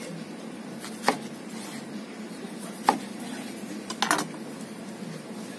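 Chef's knife cutting through a rice paper roll and knocking on a plastic cutting board: three sharp knocks, about a second in, near the middle and about four seconds in.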